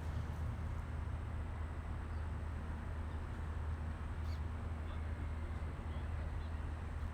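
Steady low outdoor rumble, with a few faint, short bird chirps from about four seconds in.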